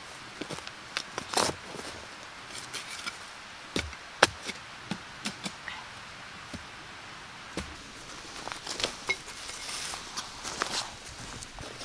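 Shovel digging into turf and soil: irregular crunching scrapes and sharp clicks of the blade biting the ground, with a denser run of scraping near the end.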